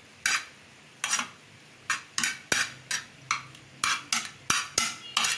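Metal spoon stirring macaroni in a metal pan, clinking and scraping against the pan about twice a second in short, irregular strokes.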